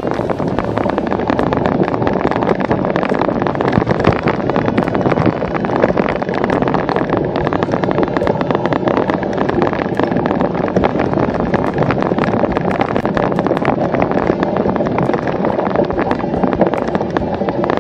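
Rough-ground riding noise picked up by a camera on a cyclocross bike: a steady loud rumble of tyres and wind, thick with constant rattling ticks as the bike bounces over grass and dead leaves.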